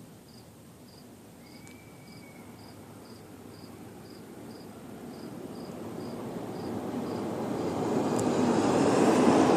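Truck driving past on the road, its engine and tyre noise growing steadily louder as it approaches and peaking near the end as it passes. A faint insect chirp repeats steadily underneath, about twice a second.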